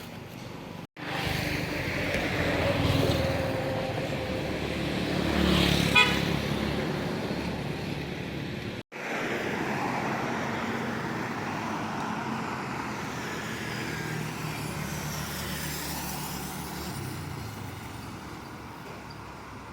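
Street traffic: cars and other vehicles passing steadily, with a short horn toot about six seconds in. The sound cuts out abruptly twice, about one and nine seconds in.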